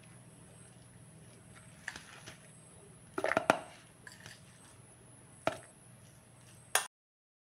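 Metal spoon scraping and knocking against a ceramic bowl while scooping out thick pickle, a few sharp clinks with the loudest cluster about three seconds in.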